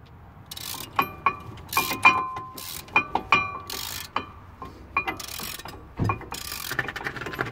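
Metal clinks and rings from work on a car's front brake disc and hub, a dozen or so sharp ringing strikes spread irregularly, with short bursts of hiss between them.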